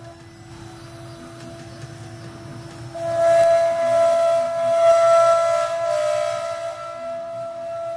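CNC router spindle whining steadily as its bit carves a wooden cylinder turning on the machine's rotary fourth axis. About three seconds in, the whine grows louder and a hissing cutting noise joins it, easing off toward the end.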